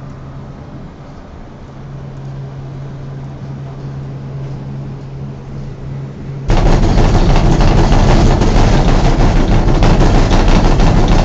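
Gondola cable car cabin riding the haul rope with a steady hum, then about six and a half seconds in a sudden, much louder rattling rumble as the cabin passes under a support tower and the rope runs over the tower's sheave rollers.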